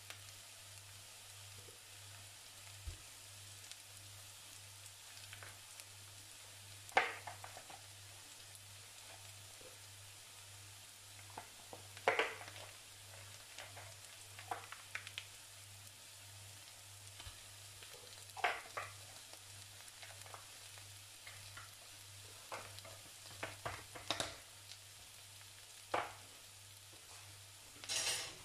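Chopped onion and garlic frying faintly in a stainless frying pan, a soft steady sizzle. Short scrapes and knocks of a spoon come now and then, about eight times, as green curry paste is scooped from its tub into the pan.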